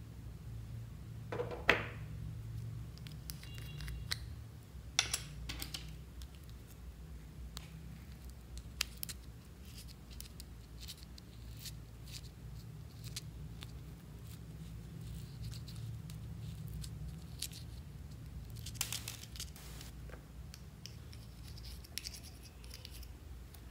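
A small plastic eyeshadow pot is handled, with a sharp plastic click about two seconds in. A plastic spatula then scrapes and taps in the pot of loose glitter, in scattered small scrapes and clicks over a steady low hum.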